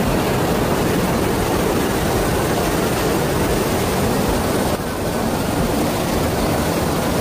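Fast-flowing floodwater rushing through a street, a loud, steady rush of water.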